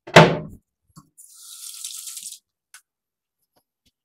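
A short loud burst right at the start, then a bathroom sink tap running for about a second.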